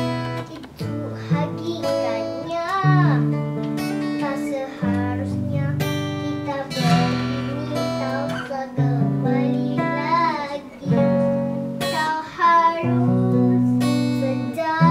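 Acoustic guitar strummed in chords that change every second or two, with a voice singing a wavering melody over it.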